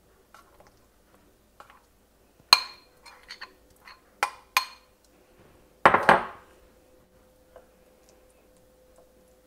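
A spoon clinking against a ceramic bowl and plate while scooping and spreading a thick dip: several sharp, ringing clinks, then one louder, longer clatter about six seconds in.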